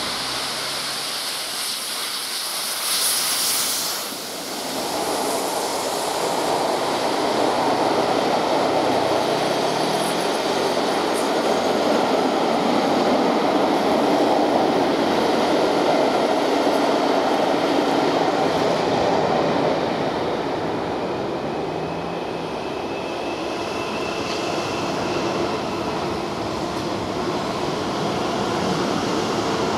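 Steam locomotive 60163 Tornado, a Peppercorn A1 Pacific, passes close by with a brief loud burst about three seconds in. It is followed by the steady rolling noise of its Pullman coaches going by. Later a Class 450 electric multiple unit runs past with a faint high whine.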